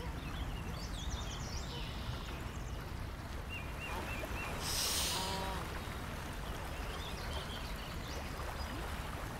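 Woodland ambience: small birds chirping and twittering over a steady low background rush, with a brief louder hiss about five seconds in, followed by a short pitched call.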